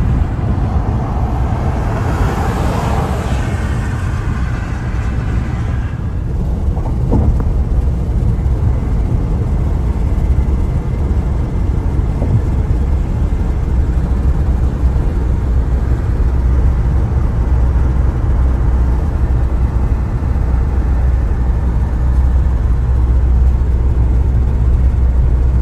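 Steady low road rumble of a car driving, with a louder rushing noise over the first six seconds that then drops away.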